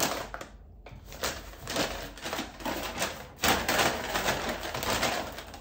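Packaging rustling and crinkling as grocery items are handled, a dense run of irregular crackles and clicks.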